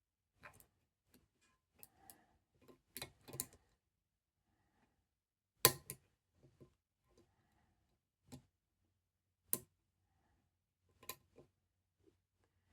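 Sparse metallic clicks and ticks of a lever pick and tension tool working inside a Chubb 7-lever lock, the pick wire slipping off the small levers. The sharpest click comes a little before halfway, with a second near three-quarters of the way through.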